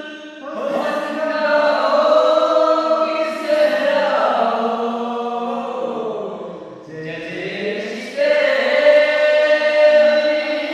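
A group of men singing a manqabat, a devotional song in praise of Imam Ali, together in long drawn-out phrases, the voices swelling louder about eight seconds in.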